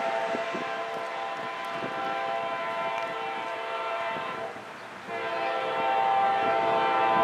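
Locomotive air horn of an approaching train sounding two long blasts: the first lasts about four seconds, then after a brief break the second begins and is slightly louder.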